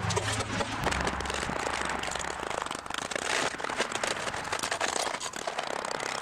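Cured sodium silicate (water glass) sand mold being broken off an aluminum casting with a mallet and chisel: a dense run of sharp cracks and crunches as the hard, sandstone-like sand breaks into chunks.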